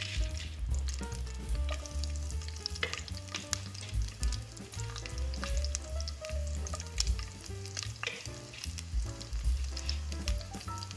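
Chopped garlic frying in hot oil in a pot, sizzling with many small pops and crackles. Background music plays underneath.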